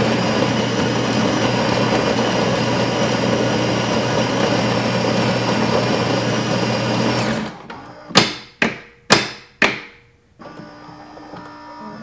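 Saeco Royal OTC espresso machine's built-in grinder grinding coffee beans for an Americano, a loud steady whirr with a low hum lasting about seven seconds. After it stops, four sharp clunks come about half a second apart as the brew unit takes in and compacts the grounds, and then a much quieter hum follows.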